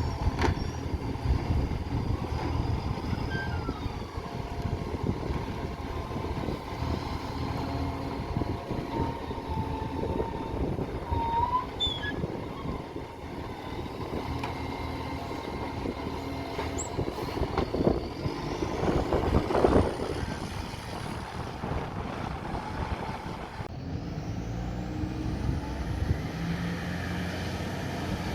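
Garbage truck with an exhaust leak running and working. There is a louder, noisier stretch about two-thirds of the way through, and the engine note rises near the end.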